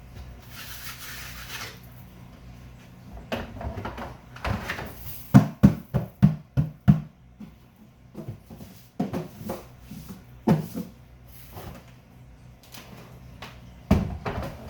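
Knocks and thumps of a plastic Brute bucket being handled and knocked to clean it out, with a quick run of about six knocks about five seconds in and a few single knocks later.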